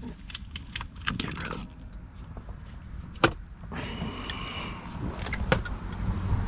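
Metal tools and parts being handled: scattered small clicks and clinks, with sharp clicks about three seconds in and again near five and a half seconds.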